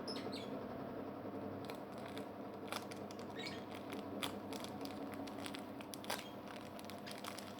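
A quiet steady background hum, with scattered small clicks and rustles as a homemade squishy toy is handled and squeezed.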